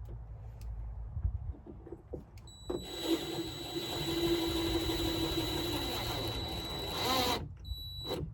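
Power drill running steadily for about four and a half seconds with a high whine, then stopping abruptly, followed by a brief second spin near the end.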